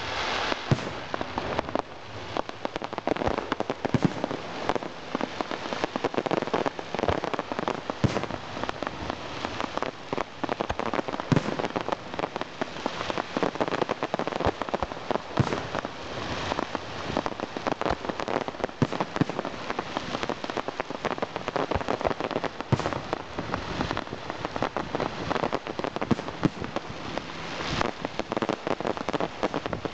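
Aerial fireworks: a dense, continuous crackle of gold crackling stars, with an occasional louder bang of a shell bursting.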